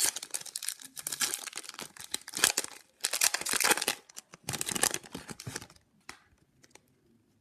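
Hockey card pack wrapper being torn open and crinkled in the hands, in several spells of crackling over the first five or six seconds, then a few faint crackles.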